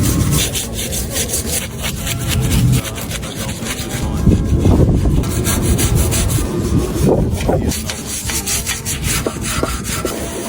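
Repeated scraping strokes, as of something being rubbed or brushed hard against a surface.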